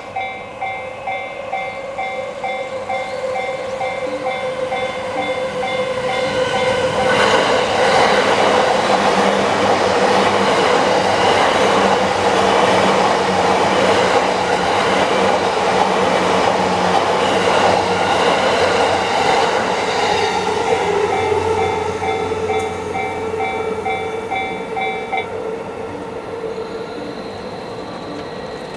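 Japanese level-crossing warning bell ringing in a rapid, steady ding-ding. About seven seconds in, the bell is drowned out by a Yamanote Line electric train passing over the crossing for about fourteen seconds. The bell is heard again as the train clears and stops about twenty-five seconds in.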